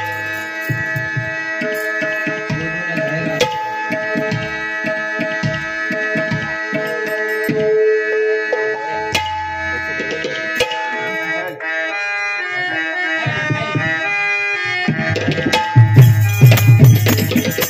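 Instrumental bhajan music: a harmonium holding notes and stepping through a melody over pakhawaj drum strokes. The drumming turns louder near the end, with heavy bass strokes.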